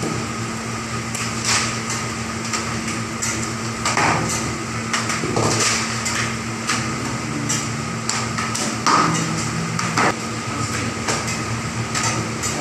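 Kitchen clatter: irregular metallic knocks and taps, a few louder ones about four, six, nine and ten seconds in, over a steady hum.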